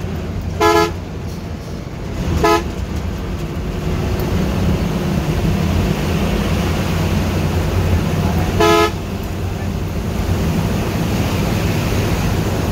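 Bus horn sounding three short blasts, about a second in, at two and a half seconds and near nine seconds, over the steady low drone of a bus engine and road noise heard from inside the moving bus.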